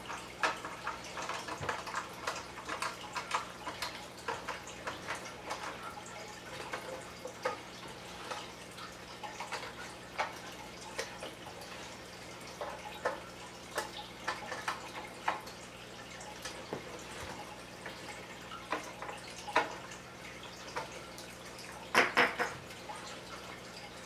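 Small hand screwdriver turning screws into the sheet-metal cover of an NVR recorder: a run of light, irregular clicks and ticks, with a louder cluster of knocks near the end.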